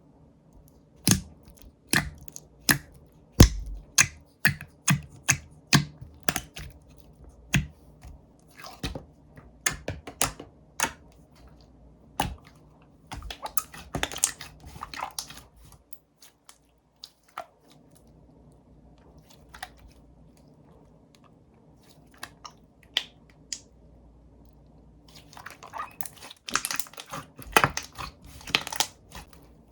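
Slime being pressed and played with by hand, giving sharp clicks and pops about two a second, then denser crackling runs a little under halfway through and again near the end, with a quieter spell of scattered clicks between.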